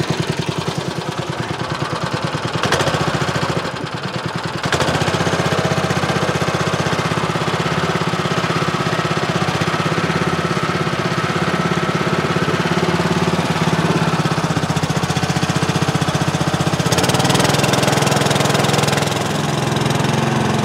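A small engine running steadily with an even, fast pulse; it drops back briefly and then picks up louder about five seconds in, and rises a little again near the end.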